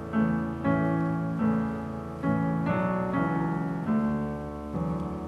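Piano music: slow chords on a piano, a new chord struck every half second to a second, with no singing.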